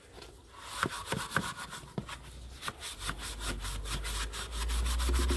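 Grade 1 wire wool scrubbed back and forth over the metal trays in quick, rasping strokes, about four a second, rubbing off the last traces of rust. A low rumble builds under the second half.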